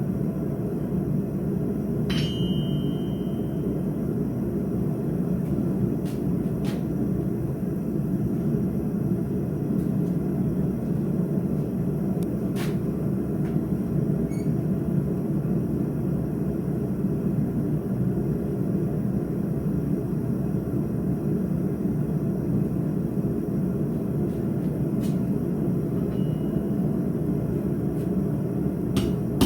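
A forge running with a steady low rush, broken by a handful of scattered metallic clinks, the one about two seconds in ringing briefly.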